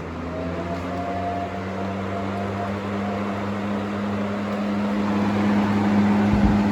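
Big Brute 20-inch high-velocity box fan, a five-bladed 120 W fan, running: a steady motor hum over the rush of moving air, growing gradually louder.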